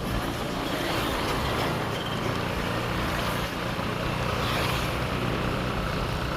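Steady road and traffic noise recorded from a moving vehicle: a continuous rumble of engine and tyres on the road.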